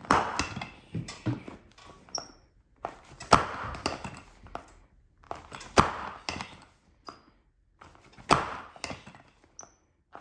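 Chiropractic adjustment: a sharp crack every couple of seconds, four strong ones and a few smaller ones, each followed by rustling of clothing and the treatment table.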